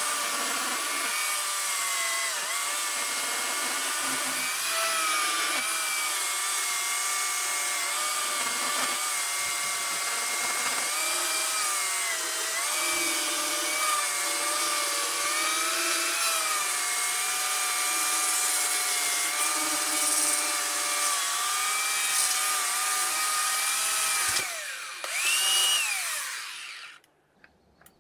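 Oregon CS1500 18-inch electric chainsaw cutting through a log: a steady motor whine whose pitch sags slightly as the chain bites. Near the end it is released, whines up briefly and spins down to a stop. The bar and chain were apparently running with no oil.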